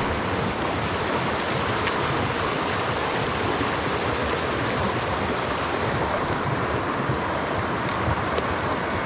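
Mountain stream water rushing steadily over a shallow riffle.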